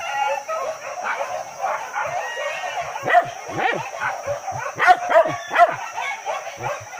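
Several boar-hunting dogs barking and yelping excitedly, many short overlapping calls, with the sharpest barks about three seconds in and again around five and five-and-a-half seconds in.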